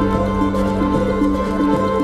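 Background music: held low tones with a soft, slowly moving melody over them.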